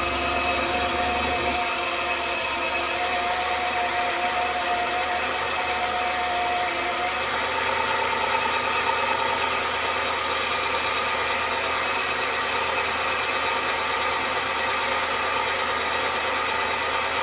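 Suzuki F6A three-cylinder engine idling steadily.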